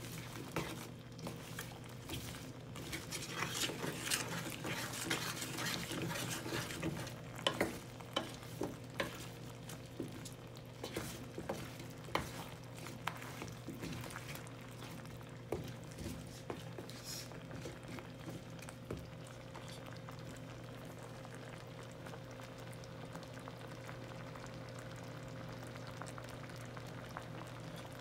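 A wooden spatula stirring chunks of squash and other vegetables in coconut milk in a stainless-steel pot, with scrapes and light knocks against the pot. The stirring thins out after about the first half, leaving a steady low hum.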